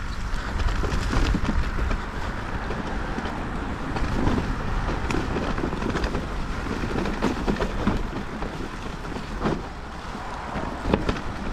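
Mountain bike riding down a rough trail: wind buffeting the microphone over a steady rumble of tyres on the ground, with scattered knocks and rattles from the bike.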